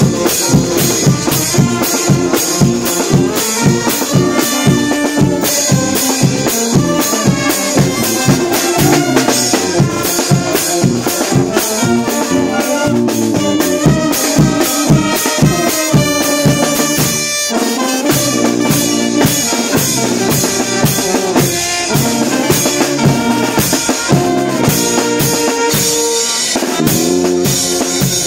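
Brass band playing live: trumpets, saxophones and a sousaphone over marching drums and a cymbal keeping a steady beat.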